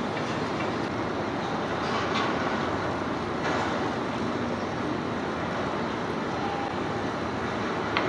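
Steady outdoor din of a large construction site mixed with traffic, broken by a few sharp knocks, the loudest one near the end.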